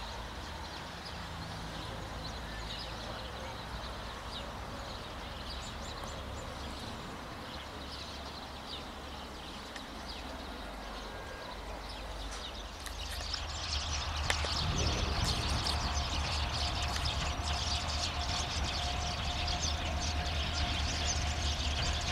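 Low diesel engine rumble with birds chirping. About 13 s in, the engine grows louder and a steady whine joins it as the CFR class 65 diesel locomotive comes close.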